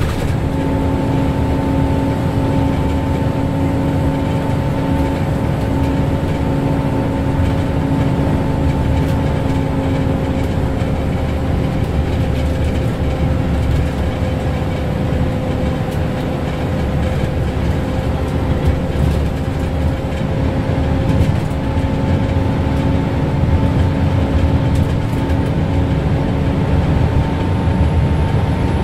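Scania L94UB city bus cruising at steady motorway speed, heard from inside: a steady whine from its ZF Ecomat 2 automatic gearbox over engine drone and tyre and road noise. The whine dips slightly in pitch midway and comes back up.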